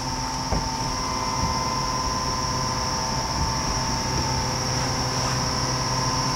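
Steady background hum made of a high whine, a middle tone and a low drone over an even hiss, with one light knock about half a second in.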